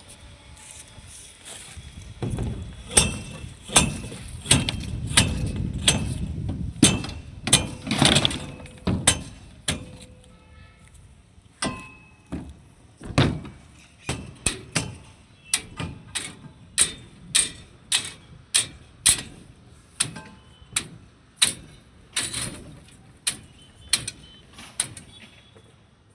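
Hammering: a long run of sharp knocks, many with a short metallic ring, coming about two a second for stretches. A low rumble lies under the first half.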